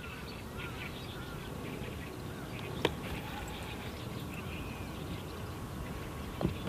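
Outdoor lakeside ambience: a steady low background noise with scattered short bird calls, and one sharp click about three seconds in.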